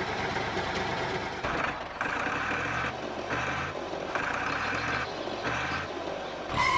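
A vehicle's motor running steadily, with a beeping tone that sounds in repeated stretches of about half a second to a second.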